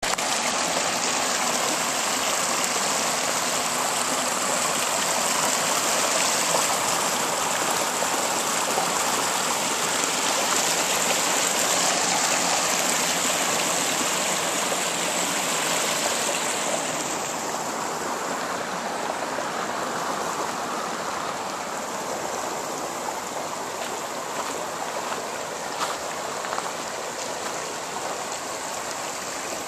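Shallow river rushing over flat rock ledges and small cascades, a steady splashing hiss of water. The hiss softens and dulls a little just over halfway through.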